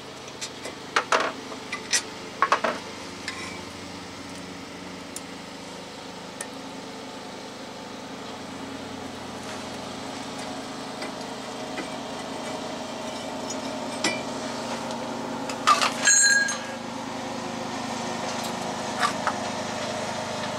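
Scattered sharp metal clinks and knocks from hand tools, bolts and a brake caliper bracket as the bracket is unbolted from a truck's front wheel hub and set down. A cluster comes about a second in and the loudest group comes a few seconds before the end. A steady motor drone runs underneath.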